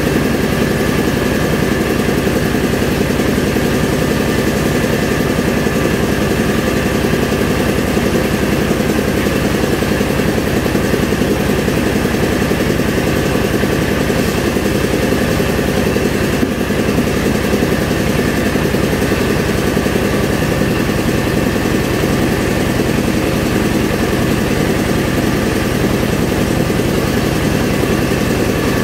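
Engine-driven rice milling machine running steadily while milling paddy.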